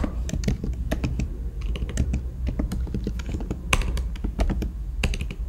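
Typing on a computer keyboard: an uneven run of key clicks, with a couple of louder keystrokes toward the end.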